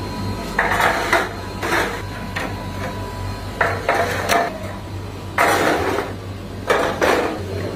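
Stainless-steel ice-bar mould trays being set down and slid on a concrete floor: a handful of irregular metal clatters and scrapes, over a steady low machine hum.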